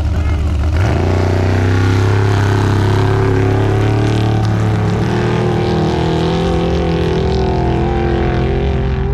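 Off-road race car engine revving up sharply about a second in, then running loud with its pitch rising and falling slightly.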